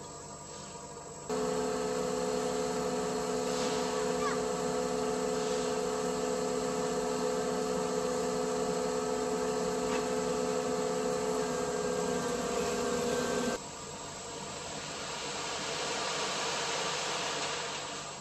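Cat skid steer's diesel engine running at a steady high speed with a constant hum. It starts abruptly about a second in and cuts off abruptly a few seconds before the end, leaving a softer hiss that swells and fades.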